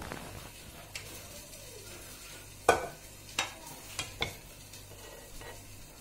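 A spoon clinking and scraping against a ceramic plate and pan as cooked vegetables are served: a handful of sharp clinks, the loudest about two and a half seconds in, then several more over the next two seconds, over a faint steady hiss.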